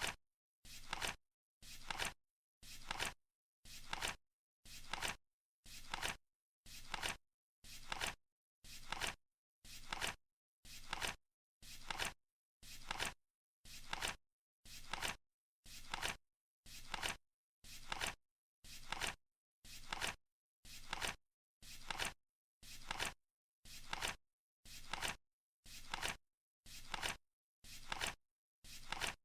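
Flip clock counting down with one flip every second, steady and even. Each flip is a sharp click trailing off within about half a second, with dead silence between flips.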